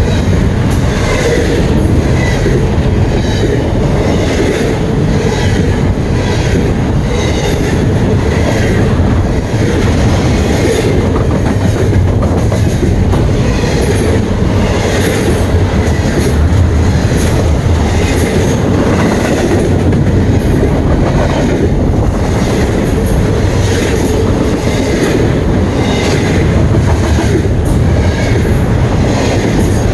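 Loud freight train rolling past, its wagon wheels clicking steadily over the rail joints above a continuous rumble.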